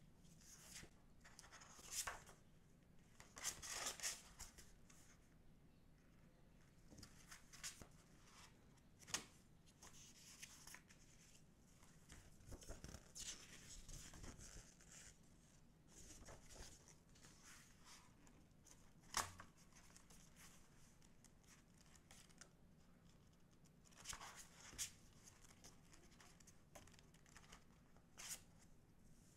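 Paper handling in gloved hands: the stiff covers and photobook pages of a K-pop album rustling and flipping as it is opened and leafed through, with a few light, sharp taps and clicks between the rustles.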